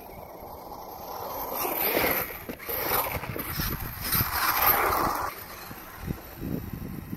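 Brushless-motored Axial Wraith RC buggy driving hard through snow: the motor and drivetrain whine up in two surges, about two seconds in and again between four and five seconds, as the tyres churn the snow, with scattered knocks from the chassis.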